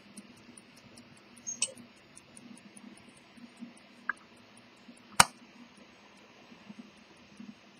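A 23-jewel Victor Kullberg marine deck watch ticking evenly, about five ticks a second. Over it come a few louder clicks and, about five seconds in, a sharp knock as the brass case is handled.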